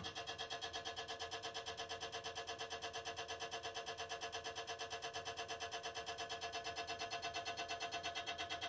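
Abnormal noise from around the power supply of a Sycom build-to-order desktop PC: a steady tonal buzz that pulses evenly about five times a second.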